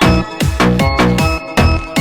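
Electronic dance music with a steady thumping kick-drum beat and synth tones.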